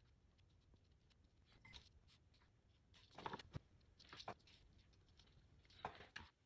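Near silence, with a few faint, brief sounds of a small paintbrush dabbing oil paint onto paper sign letters lying on cardboard.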